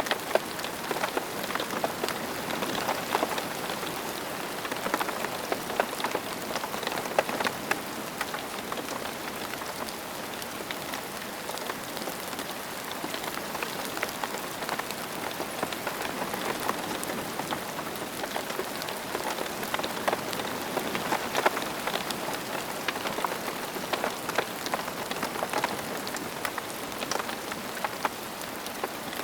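Steady rain falling on a surface, a constant hiss dotted with many individual drop ticks.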